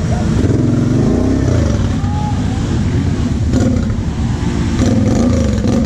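Kawasaki KFX 700 V-Force quad's V-twin engine running under throttle, its revs rising and falling as it rides through mud. A couple of short knocks come through, around the middle and near the end.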